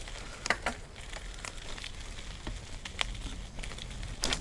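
Mountain bike tyres rolling over a dirt trail, with irregular crackles and ticks of twigs and grit under the wheels and a couple of sharper clicks near the end.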